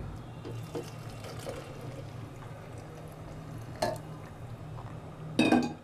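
Hot water pouring from a saucepan into a plastic blender jar of grated coconut, a steady splashing fill. A sharp tap comes about four seconds in, and a louder knock near the end.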